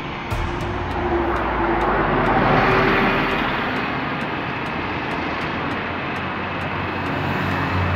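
Street traffic heard from the open back of a moving truck: engines and tyres running, with wind noise, swelling about two to three seconds in.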